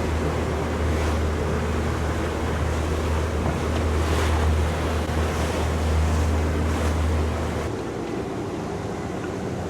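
Motorboat running at speed over choppy water, with a steady low rumble of engine and wind on the microphone and a few hissing splashes of spray from the hull. Near the end the low rumble drops away as the boat slows.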